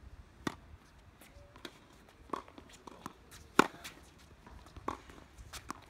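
Tennis balls struck by rackets and bouncing on a hard court during a serve and rally: a string of sharp pops about a second apart, the loudest about three and a half seconds in.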